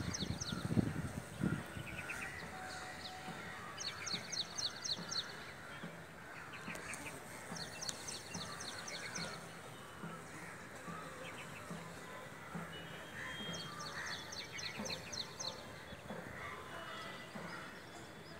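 A bird calls several times, each call a quick run of high, evenly spaced notes lasting about a second, over a steady outdoor hiss. A few low rumbles hit the microphone about a second in.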